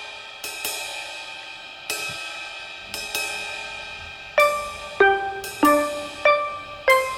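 Background music: a run of struck, ringing notes that gets quicker about halfway through.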